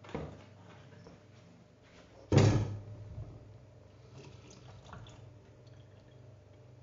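Kitchen handling sounds at the sink: a sharp knock about two seconds in, then faint running water and small clinks as water is taken from the tap for the batter.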